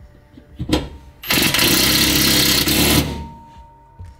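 Cordless impact driver driving a screw through a metal support hook into a steel wall rail: a brief blip under a second in, then the driver runs hard for just under two seconds and stops.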